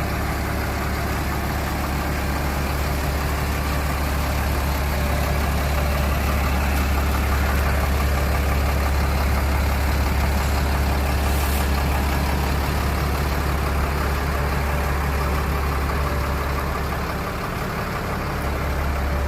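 A large engine idling steadily, easing off slightly near the end.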